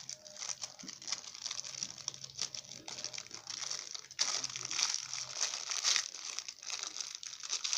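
Plastic wrapper of a pack of Daiso soft clay crinkling and crackling as it is handled, growing louder about halfway through.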